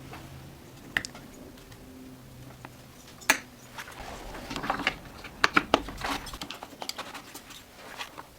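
Scattered sharp metallic clicks and clinks of small chainsaw parts and hand tools being handled, with a quick cluster of clinks about five to six seconds in.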